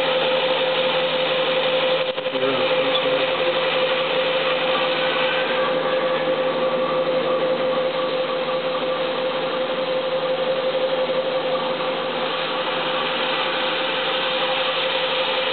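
Haas TM-1 CNC mill threadmilling grooves into Delrin rods: the spindle runs with a steady high whine over constant cutting noise, with a brief dip about two seconds in.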